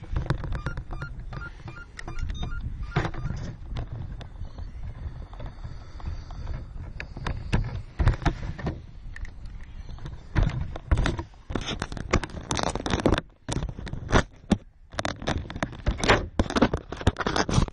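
Sound picked up on board a radio-controlled car driving over gravel: a low rumble with irregular knocks and clatters from the chassis and body jolting over the stones, growing denser and louder in the second half.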